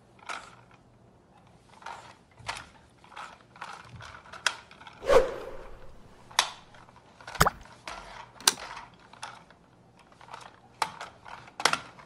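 Sticky lint roller rolled over the carpet of a cat tree perch, crackling in a string of irregular clicks, the loudest about five seconds in.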